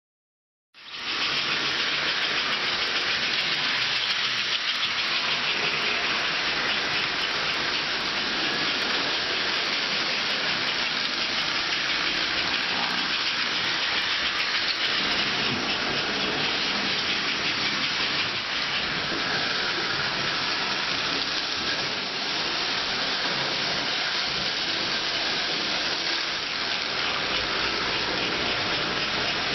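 Toy electric train running on its track: a steady rushing noise of wheels and motor that starts abruptly about a second in.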